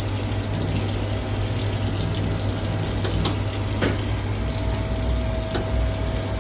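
Water running from a tap fed by an Ariston water heater under test, over a steady low hum.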